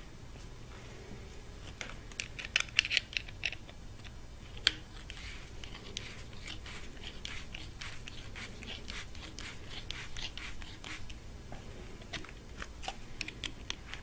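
A screwdriver turning the screw of a worm-gear hose clamp to tighten it on a coolant hose: a run of small metal clicks and scrapes, loudest in a quick cluster about two to three and a half seconds in, with one sharp click near five seconds. A steady low hum runs underneath.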